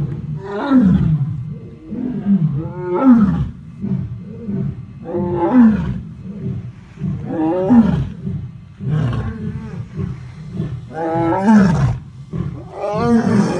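Lions roaring: a long bout of roars, each one sliding down in pitch, repeating every two seconds or so.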